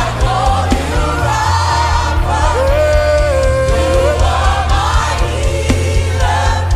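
Live gospel worship music: singers and a backing band, with a steady bass and a long held sung note in the middle.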